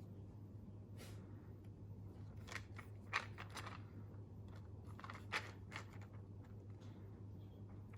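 Quiet handling noise from unboxing packaging: scattered crinkles and rustles with two sharper clicks, about three seconds in and again near five and a half seconds, over a low steady hum.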